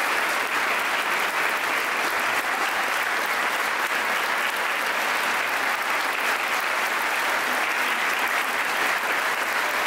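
Sustained applause from a large audience, many hands clapping at a steady level with no break.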